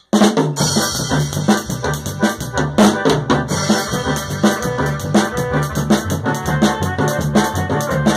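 Electronic keyboard music: a keyboard melody over a steady drum beat and bass line. It starts suddenly right at the beginning.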